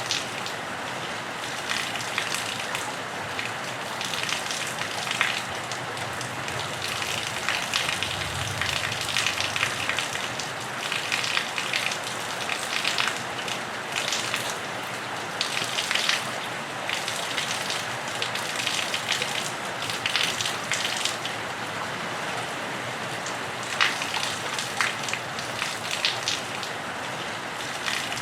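Steady rain pattering on a roof and running off it, with a dense crackle of drops and splashes.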